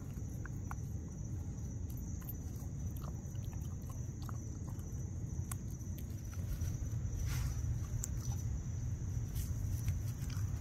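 Night insects trilling steadily at a high pitch over a low rumble that grows louder about two-thirds of the way through, with scattered small clicks and rustles from the puppy working at the dirt and leaves.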